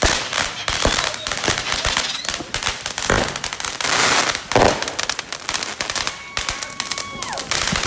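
Firecrackers popping rapidly and without a break, with louder bangs about three and four and a half seconds in. Near the end a steady whistling tone holds for about a second and then drops in pitch.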